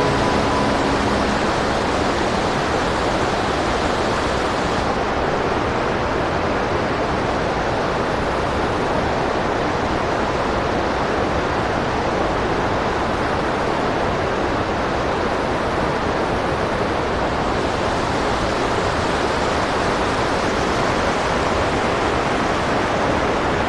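Rocky mountain river rushing through rapids over boulders: a steady, even roar of churning water. The hiss softens slightly about five seconds in.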